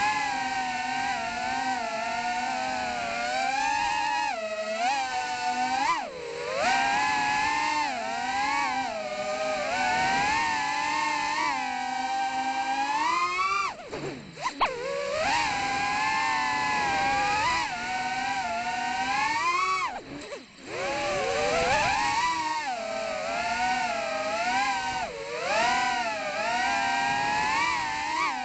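Emax 2004 3000 kV brushless motors with 3.5-inch props on an FPV quadcopter, whining loudly. The pitch rises and falls continually with the throttle. Twice the whine drops out for a moment and surges back, the first time as the quad flips upside down around the middle.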